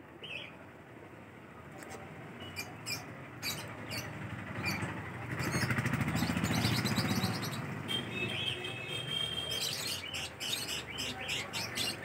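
Caged pet birds chirping and tweeting in quick, sharp notes, with a rapid run of chirps near the end. A louder low rumble rises and fades in the middle.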